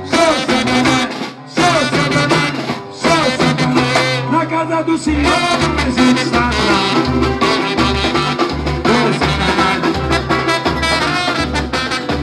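Live samba band playing with a male singer's voice over it. There are two short breaks in the first three seconds, and from about five seconds in a deep drum beat comes in, about every 0.7 s.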